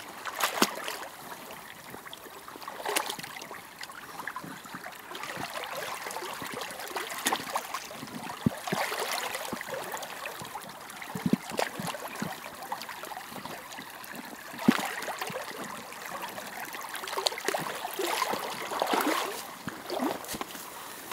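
Rubber boots wading through shallow, muddy water: irregular sloshing steps with some sharper splashes. Near the end the steps leave the water for grass.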